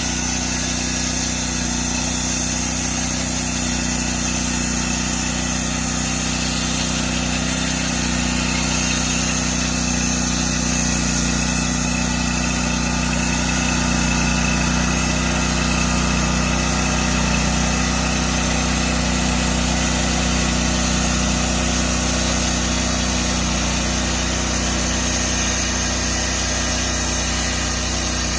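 Small gas engine of a portable bandsaw sawmill running at a steady speed.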